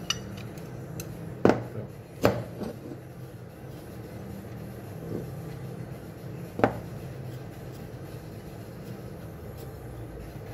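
Metal drill chuck extractor plate knocking and clinking against a drill chuck as it is handled and fitted by hand: a few sharp clinks, the loudest about one and a half, two and a quarter, and six and a half seconds in, over a steady low hum.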